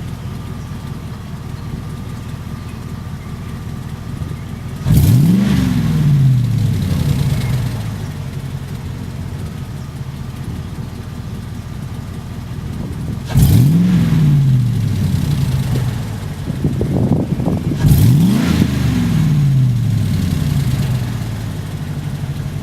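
Chevy 8.1 L Vortec big-block V8 idling through a Magnaflow internal-crossover muffler with dual 2.5-inch outlets, blipped three times, about 5, 13 and 18 seconds in, each rev rising quickly and then falling back to idle. At idle it is barely louder than a stock exhaust, and the revs have a deep tone.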